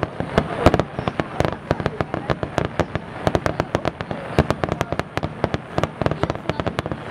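Aerial firework shells bursting in a dense barrage, sharp bangs following one another irregularly, several a second.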